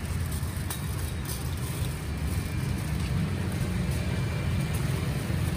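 Steady low rumble of road traffic, with a faint click about a second in.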